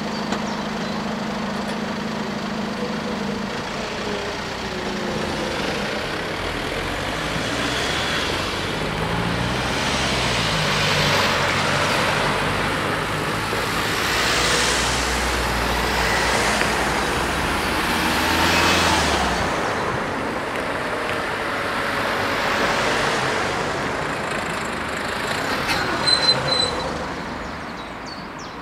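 A line of cars driving over a level crossing one after another, each passing close with a swell of engine and tyre noise that fades away. The traffic thins out toward the end, with a brief cluster of sharp high sounds just before it.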